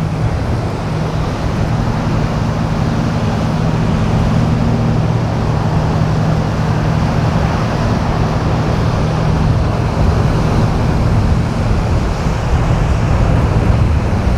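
A motor engine running with a steady low hum, over wind and surf noise.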